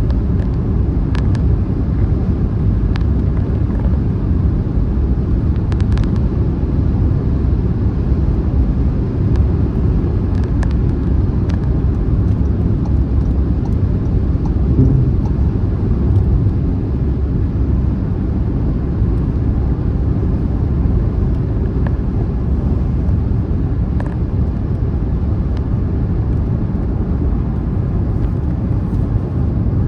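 Car driving at motorway speed: a steady low rumble of road and tyre noise, with a few faint ticks.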